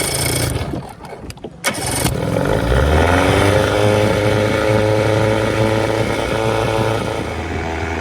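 25 hp Johnson two-stroke twin outboard motor being started. It catches about two seconds in after some knocks and clatter, revs briefly and settles into a steady run. The ignition coils have just been swapped between cylinders to test whether the intermittent misfire follows the coil.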